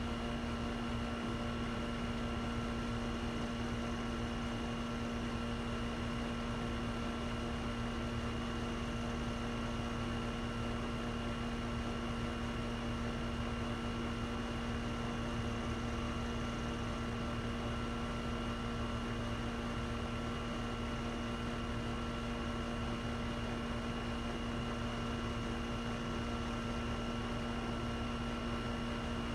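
A steady hum with a few constant tones over an even hiss, unchanging throughout.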